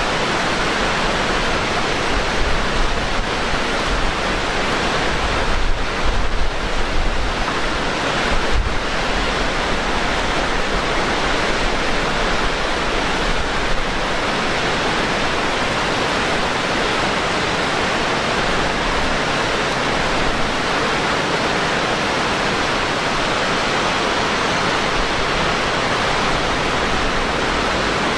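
Waterfall: a river rushing over wide stepped rock ledges, a steady, even rush of water. Between about two and nine seconds in, a few low gusts of wind buffet the microphone.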